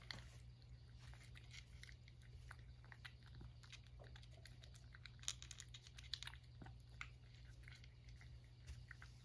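A cat chewing food from a dish, with faint, irregular crunching clicks.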